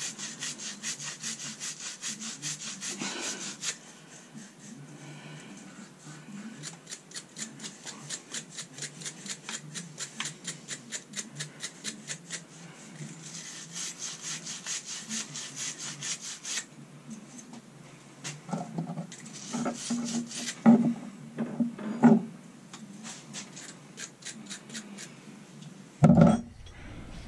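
Copper plumbing fittings being scrubbed by hand to clean bare metal for soldering: an abrasive rubbing the outside and a fitting brush worked inside, a scratchy rasp in fast strokes of about four a second. A few sharper knocks come about two-thirds through, and a loud bump comes near the end.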